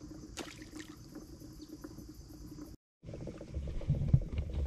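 Steady high chirring of insects, with a small splash about half a second in as a small crappie is dropped back into the water. After a cut, low bumping and rumbling with light ticks and rattles near the end.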